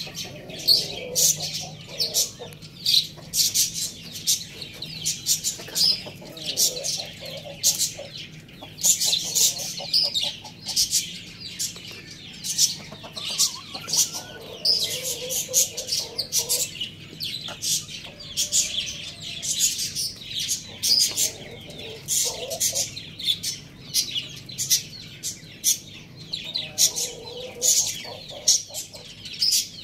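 Young roosters and hens clucking softly in short bouts while they feed. A steady chatter of quick high chirps from small birds runs under them.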